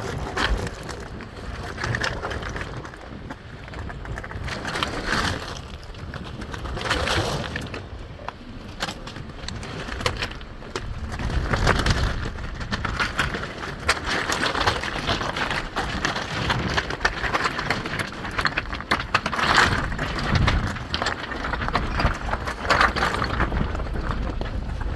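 A small off-road 4x4 driving over a rough, rocky dirt trail: a low running rumble under irregular crunches, knocks and rattles that swell and fade.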